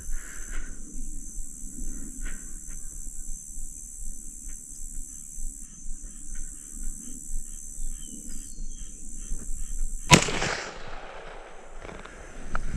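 A single rifle shot from an AR-15 chambered in .350 Legend, about ten seconds in: one sharp crack followed by an echo that rolls off over about a second.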